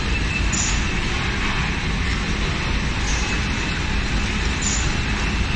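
Automatic biscuit arranging and flow-wrap packing line running: steady machine noise from its conveyors and drives, with two short hisses, one about half a second in and one near the end.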